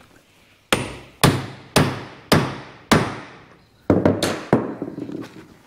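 Hammer blows on a hand eyelet-setting die resting on a table leg, rolling the eyelet's post over onto its washer. There are five strikes about half a second apart, a short pause, then three quicker ones, each ringing briefly.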